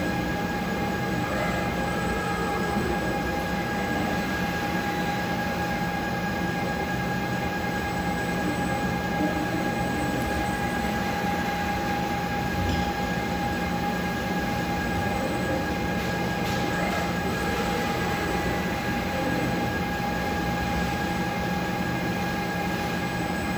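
Concrete 3D printer's machinery running steadily: an even mechanical rumble with a constant high whine and a low hum over it.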